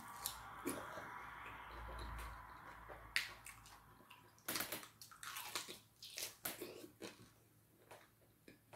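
Wet, close-up eating by hand: fingers squishing fufu through slimy okra soup, with lip smacks, finger-licking and chewing. The sharp wet clicks and smacks come thick after about three seconds, over a steady hiss in the first few seconds.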